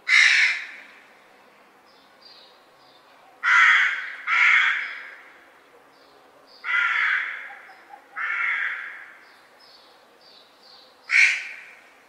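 Crows cawing: six loud, harsh caws, irregularly spaced, two of them close together about three and a half seconds in. Faint, quick high chirps sound between the caws.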